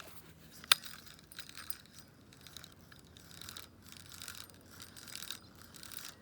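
Push-button spincast fishing reel being worked, with scattered light clicks and rattles and one sharp click a little under a second in.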